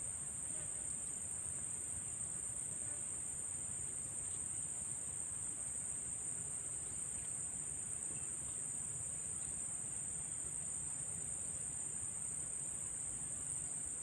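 A steady, high-pitched insect chorus that drones on without a break, over a faint low rumble.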